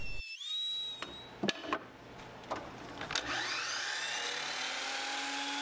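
A miter saw's motor spinning up about three seconds in, its whine rising in pitch and then running steady, with the blade not yet in the maple. Before it, a tool's whine dies away in the first second and a few sharp clicks follow.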